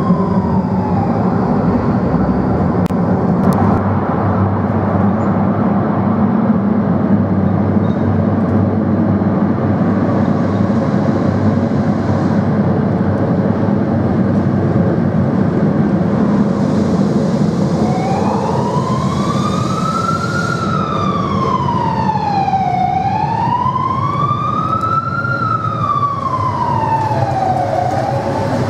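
Tram running through a tunnel, a steady rumble with a low hum. About two-thirds of the way in, an emergency vehicle's siren wails, slowly rising and falling twice.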